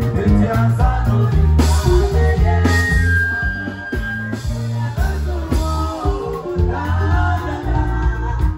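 Live band music with a woman singing lead through a microphone, over electric guitar and a strong, stepping bass line.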